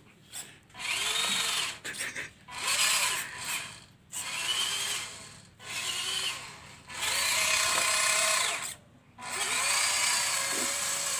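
The small electric drive motor of a cardboard RC toy truck whining in about six short bursts as it is driven in spurts, the pitch rising as it speeds up and falling as it stops each time.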